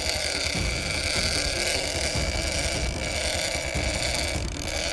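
Boat engine running steadily, with wind rumbling on the microphone.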